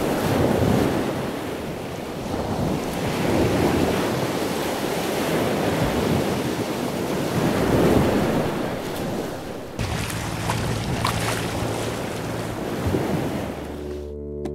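Wind buffeting the microphone over the rush of sea water along a sailboat's hull, rising and falling in swells. About ten seconds in a low steady hum joins, the boat's engine running as it motor-sails; the sound cuts out just before the end.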